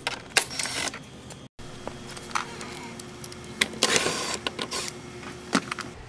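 Cordless drill-driver backing out a door-panel screw: a faint steady motor hum through the middle, with sharp clicks and a brief rattle as the screw and tool are handled.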